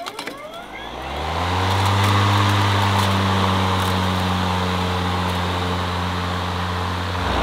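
EGO 56V Select Cut (LM2135SP) cordless lawn mower starting: its blades spin up with a rising whine over about a second, then run at a steady pitch as it is pushed over the lawn. Set at its highest cutting height, it runs without cutting the grass. The sound stops abruptly near the end.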